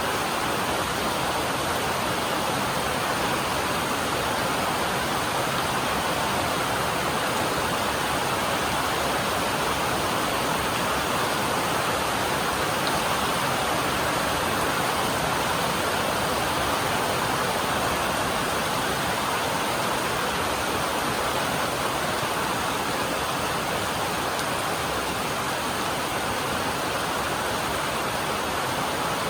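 Heavy rain falling on a metal roof: a steady, dense hiss with no single drops standing out.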